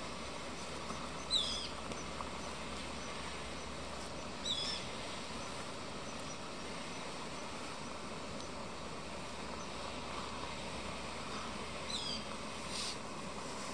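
Steady hiss of a canister gas stove burner heating a pot of rice noodles as they are stirred. Three brief high squeaks glide downward, about a second, four and a half seconds and twelve seconds in.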